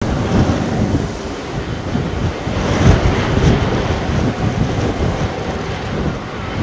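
Wind buffeting the microphone in irregular gusts over the steady rumble of the Airbus Beluga XL's Rolls-Royce Trent 700 jet engines at taxi power.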